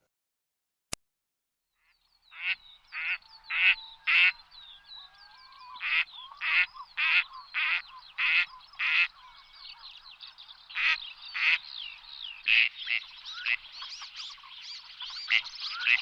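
A flock of waterfowl calling: many short, harsh, repeated calls overlapping one another, starting about two seconds in after a single click.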